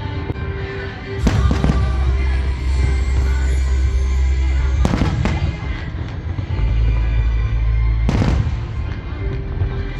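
Fireworks going off: three big bursts a few seconds apart, each with a crackling tail, over music with a heavy, steady bass.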